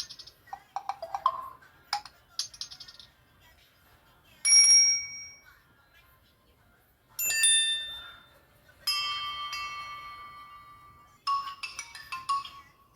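Samsung Galaxy Star GT-S5282 factory ringtones playing one after another: a series of short electronic chimes and bell-like tones with gaps between them. The longest rings out and fades slowly over about two seconds, and a quick run of short notes follows near the end.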